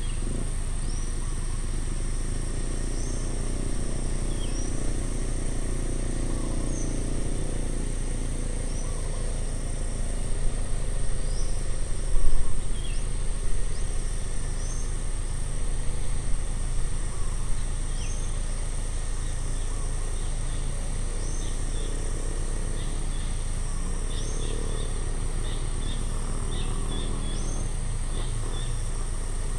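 Roadside outdoor ambience: birds give short chirps every second or two over a constant high insect-like drone and a steady low rumble. A louder, uneven stretch comes about a third of the way in.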